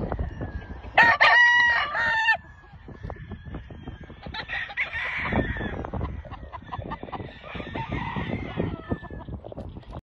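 A rooster crowing once, about a second in: a loud, pitched call lasting just over a second, with a short break near its end. Quieter outdoor noise and low rumble follow.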